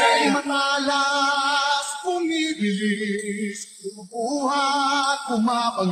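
A song with a singer holding long, wavering notes, one after another, with short breaks between them.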